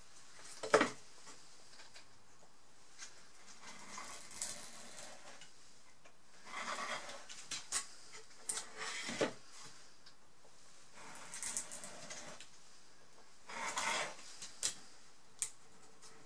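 Utility knife blade drawn along the edge of photo paper glued to a wooden canvas frame, trimming off the overhang in several short scraping strokes. A few sharp knocks as the wooden frame is turned and set down on the cutting mat, one about a second in and another near the middle.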